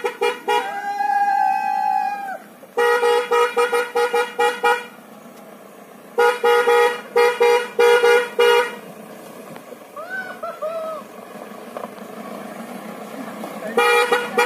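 Mahindra Bolero's horn honked in clusters of quick, loud toots: a spell right at the start, another from about three to five seconds in, another from about six to nine seconds in, and a last spell just before the end. A person gives a long whoop about a second in and a few short calls around ten seconds in.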